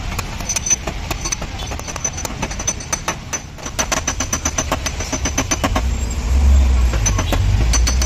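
Quick, light taps of a small hammer on a tap-down tool against the dented front fender of a Kia Sonet, knocking the metal back level in paintless dent repair. A low engine rumble underneath grows louder about six seconds in.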